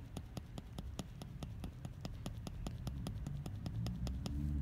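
14 hard shading needle in a manual permanent-makeup hand tool tapping rapidly into a practice mat, a steady run of light clicks at about six or seven a second that stops near the end.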